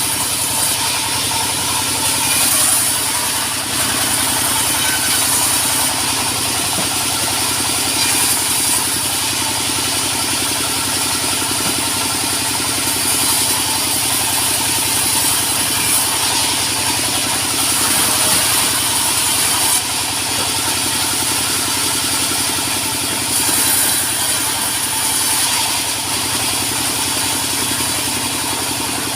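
Sawmill machinery running steadily: a loud, even mechanical drone with a constant hum.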